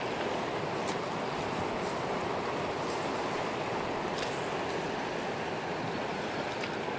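Steady rush of a mountain river running over a shallow, rocky riffle.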